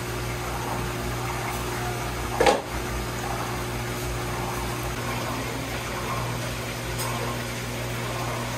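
Steady low machine hum over a background of noise, broken by one sharp knock about two and a half seconds in.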